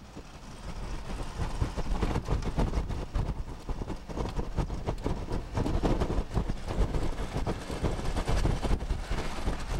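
Tropical-storm wind gusting: a heavy, rumbling rush of air that swells over the first couple of seconds and then surges up and down with the gusts.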